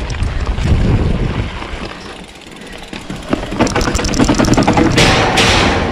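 Polygon Siskiu T8 mountain bike rattling over a rough dirt trail, then clattering rapidly down steel-grate stairs from about three and a half seconds in. The metal steps ring under the tyres, loudest near the end.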